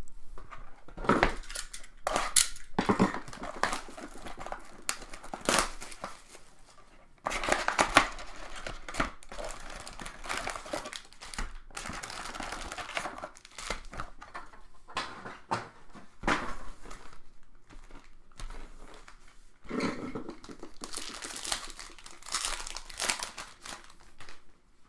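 Panini Select football card packs being torn open, their wrappers crinkling and tearing in irregular spells with short pauses.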